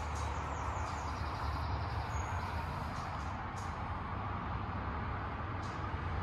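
Renault Twingo's petrol engine idling steadily, a low even hum heard from behind the car near the exhaust.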